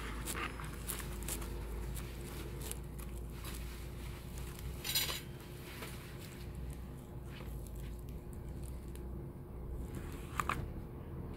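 Hands handling a cardboard pizza box and pulling a slice of pizza free: scattered small clicks and rustles, a louder scrape about five seconds in and a couple of sharp clicks near the end, over a low steady hum.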